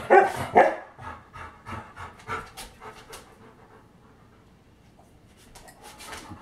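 Large dog panting in quick, rhythmic breaths, about three or four a second, loudest in the first second. The panting fades out about halfway through and picks up again briefly near the end.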